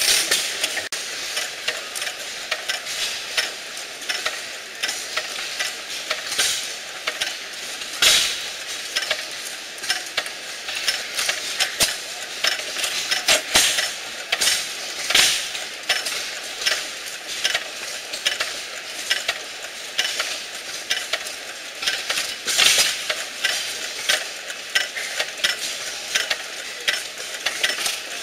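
Antique hopper-cooled hit-and-miss gas engines running: an irregular clatter of sharp clicks and ticks, with a louder knock every few seconds.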